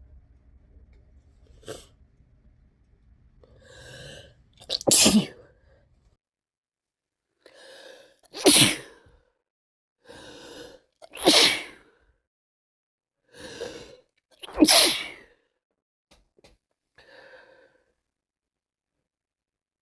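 A person with a cold sneezing four times, about three seconds apart. Each sneeze is preceded by a short breathy build-up, and a faint breath follows near the end.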